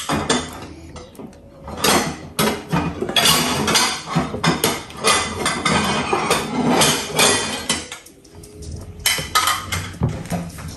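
Ceramic bowls and plates clinking and clattering on a table, with cutlery knocking against them, in irregular knocks that thin out briefly a little after the middle.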